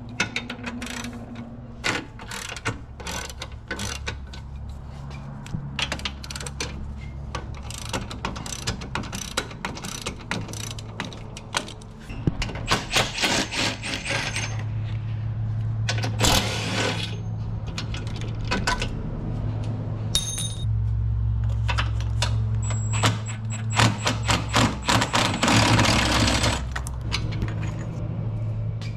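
Ratchet wrench clicking in quick runs, with clinks of metal tools, as the bolts holding a power steering rack are undone. A steady low hum runs underneath.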